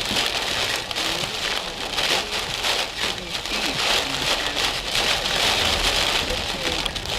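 Heavy rain pelting a vehicle's roof and windshield during a severe thunderstorm, heard from inside the car as a dense, steady patter of drops.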